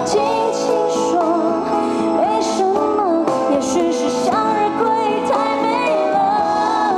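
A woman singing a pop song live into a microphone over amplified instrumental backing, with long held notes that waver and slide between pitches.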